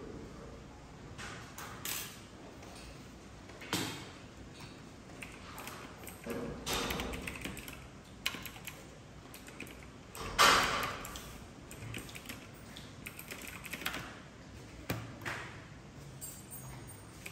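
Scattered light clicks and taps with a few short rustling sounds of small things being handled on a tabletop, the loudest rustle about ten seconds in.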